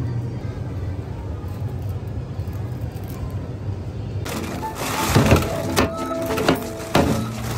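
Steady low rumble for about four seconds. Then background music with a light stepped melody comes in, over loud crinkling of thin plastic shopping bags, with the sharpest crinkles near the middle and again near the end.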